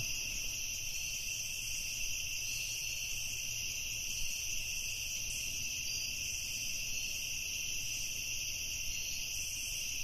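Crickets shrilling in a steady, unbroken high-pitched chorus.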